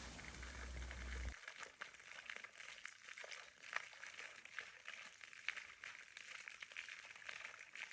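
Faint outdoor ambience: a low hum for about the first second, then scattered short, high ticks.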